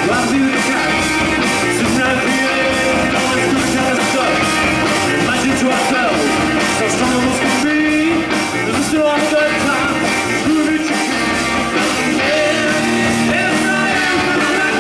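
Rock-and-roll music with a singing voice, played continuously at a steady loud level.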